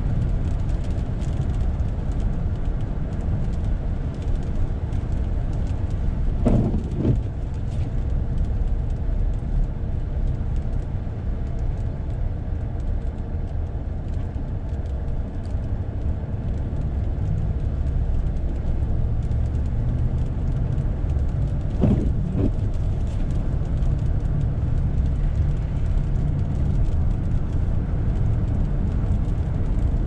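Steady low rumble inside a car's cabin as it drives on a snow-covered road: engine and tyre noise. Twice, about six seconds in and again past the twenty-second mark, a brief sound stands out that fits the windshield wiper sweeping across the glass.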